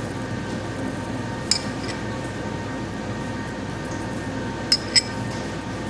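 Metal spoon clinking against a stainless pot and a porcelain cup while skimming fat off simmering consommé: three sharp clinks, one about a second and a half in and two close together near the end, over a steady background hum.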